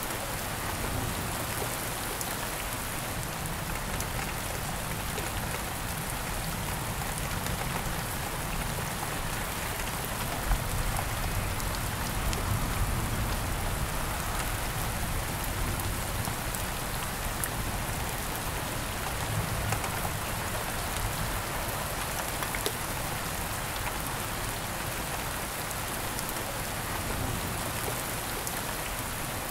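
Steady rain falling: a dense, even hiss of rain with scattered individual drop hits.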